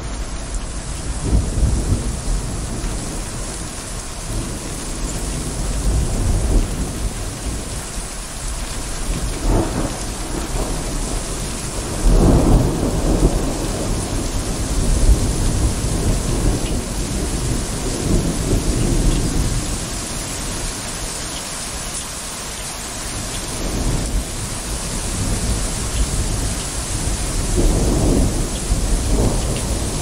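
Steady rain hissing, with thunder rumbling several times. The loudest peal breaks suddenly about twelve seconds in.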